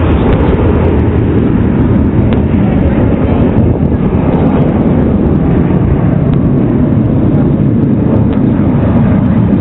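Loud, steady jet engine noise from the Blue Angels' F/A-18 Hornets.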